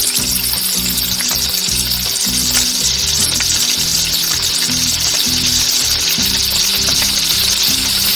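Chicken pieces frying in butter and oil in a pan, a steady sizzle, with background music underneath.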